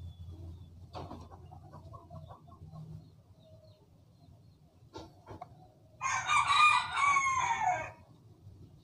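A rooster crows once, about six seconds in, a loud call lasting about two seconds that drops in pitch at the end. Before it come a few faint clicks from the plastic vape pod being handled.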